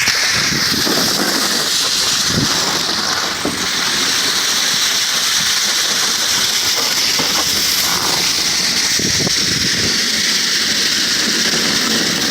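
A refrigerator being pushed along the street, scraping steadily over the ground as it is dragged.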